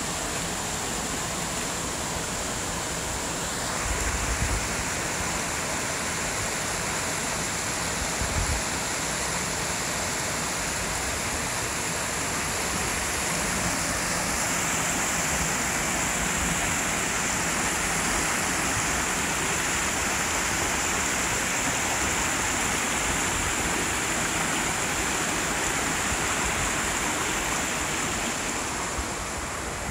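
Mountain stream rushing over rocks and small cascades, a steady rush of water. There are two brief low bumps about four and eight seconds in.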